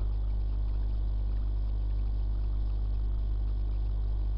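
Steady low electrical hum with an even hiss over it: the background noise of the recording microphone, with no speech. One small click right at the start.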